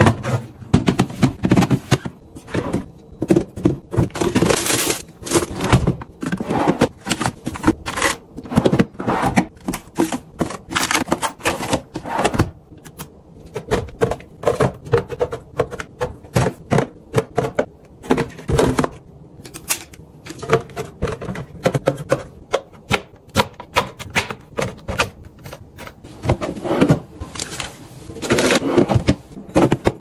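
Clear plastic refrigerator storage bins, drawers and bottles being handled and set onto shelves: a dense, uneven run of plastic clicks, taps and knocks.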